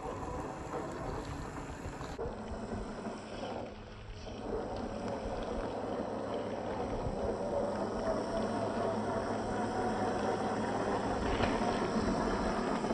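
Whine of a 1/10-scale RC crawler's brushed 540 motor and geared drivetrain as it creeps along at low speed, with a faint steady motor whine over rustling tyre and ground noise.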